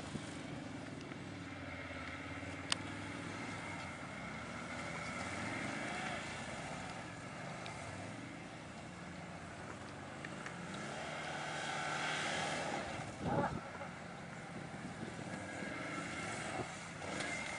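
Quad bike engines running and revving up and down as the ATVs crawl over dirt mounds. There is a sharp click a few seconds in and a brief louder thump about two-thirds of the way through.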